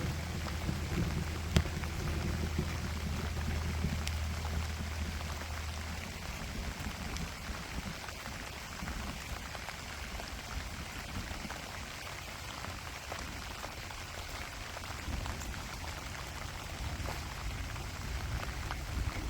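Light, gentle rain falling: a steady patter of many small drops. A low steady hum runs under it for the first six seconds or so, and there is one sharp click about a second and a half in.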